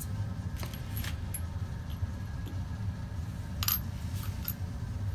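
Light clicks and clinks of small metal airbrush parts and glass jars being handled: a few sharp taps with a high ring, about a second in and again past the middle, over a steady low hum.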